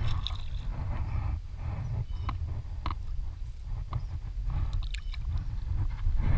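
Low wind rumble buffeting the microphone, with a few scattered light knocks and rustles.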